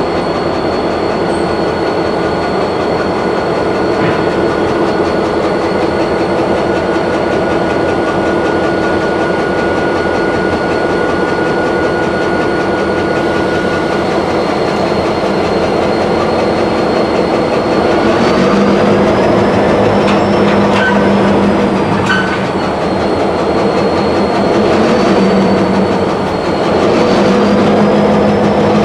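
Union Pacific diesel-electric locomotive running as it slowly moves a cut of coal hoppers, with a thin high whine over the engine. About 18 s in the engine gets louder and a deeper note comes in, and the whine starts to waver up and down in pitch.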